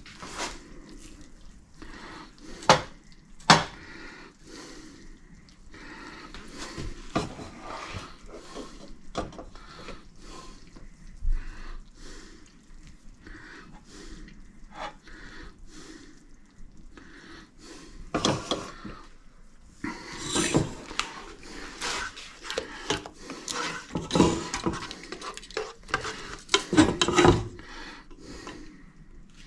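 Utensils and dishes clinking and scraping as food is dished onto a plate. Two sharp knocks come about three seconds in, and denser, louder clattering comes in the last ten seconds.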